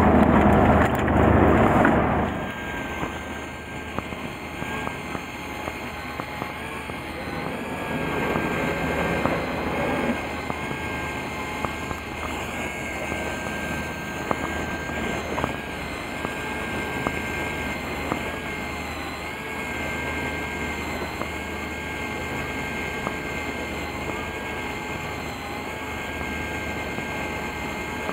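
About the first two seconds hold close-up handling noise. Then a fishing boat's engine runs steadily, a continuous drone with a faint high whine over it.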